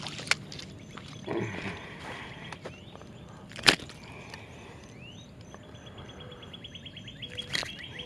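Birds chirping: a few short rising calls, then a fast run of high ticks from about two-thirds in. There is also a single sharp click near the middle.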